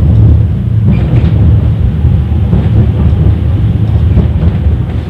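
71-931 "Vityaz" tram running, heard from inside the passenger cabin: a loud, steady low rumble with a few faint ticks.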